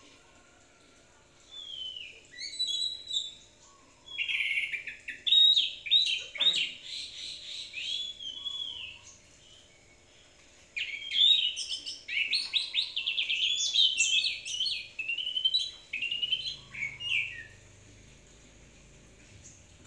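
A caged orange-headed thrush (anis kembang) singing vigorously, in three bouts of varied whistled phrases and fast trills with short pauses between.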